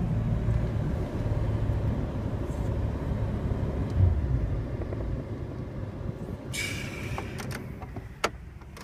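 Jeep Cherokee XJ's 4.0 inline-six running at idle, a steady low rumble that fades over the last few seconds. A short hiss comes near the end, followed by a few sharp clicks.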